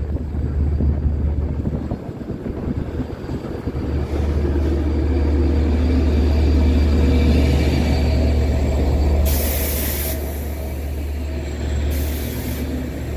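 Long Island Rail Road DE30AC diesel-electric locomotive pulling bilevel coaches into the station platform. A steady low engine drone sits under the rumble of the cars rolling past, and two short bursts of hissing air from the brakes come about nine and twelve seconds in.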